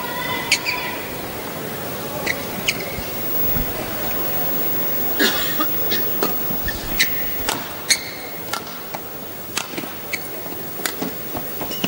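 Badminton rally in a large indoor hall: sharp racket strikes on the shuttlecock and short squeaks of shoes on the court, coming thick and fast from about five seconds in, over the hall's steady crowd hum.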